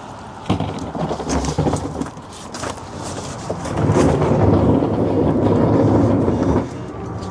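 Sharp knocks and clatter of hand work on the sprinkler fitting, then a loud rush of water for a few seconds that cuts back near the end: residual water from the sprinkler line draining out as the head is changed.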